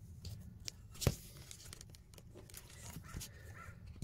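Faint handling sounds in an engine bay: light rustling and a few small clicks, with one sharper click about a second in.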